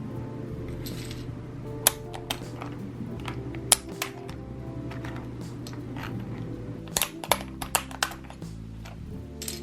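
Plastic keycaps being pulled off a mechanical keyboard's switches with a keycap puller and set down: irregular sharp clicks and clacks, a few at a time, then a quick flurry about seven seconds in. Soft background music plays underneath.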